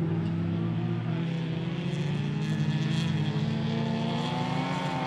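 Several folkrace cars racing together, their engines running at high revs with overlapping notes that shift as they accelerate.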